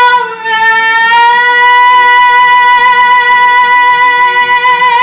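A woman's singing voice holding one long belted note over an instrumental backing track. After a brief dip about half a second in, the note settles and holds steady without vibrato. It is the climactic sustained note of the song's final line.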